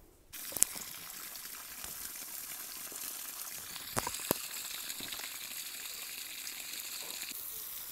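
Steady hiss of water spraying from a garden hose, with a sharp click just after it begins. About four seconds in come two crisp crunches as a raw sorrel leaf is bitten.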